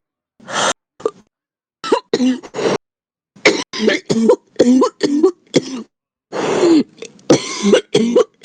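A heavy smoker's coughing fit: many short chesty coughs in quick clusters, with a longer drawn-out cough about two-thirds of the way through.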